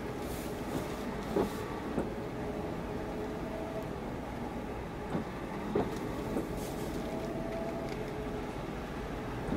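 Steady low machinery hum from moored fishing boats, with an even hiss of light rain, and footsteps on wet concrete in two short runs of two or three steps.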